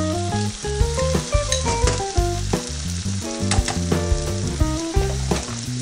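Meat-and-vegetable sauce sizzling in a frying pan as raw rice is spooned into it, with background music playing over it.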